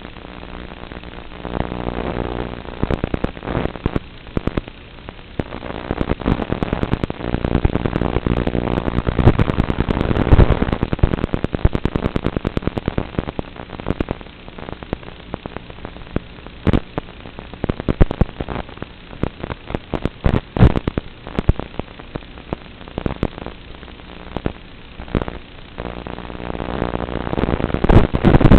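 Crackling static and pops from an analog FPV video link's audio, recorded on the goggles' DVR, with a steady humming tone coming through at times.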